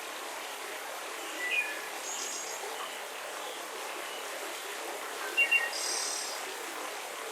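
Steady wind noise with scattered short bird chirps: a few brief calls about a second and a half in and again a little past the middle.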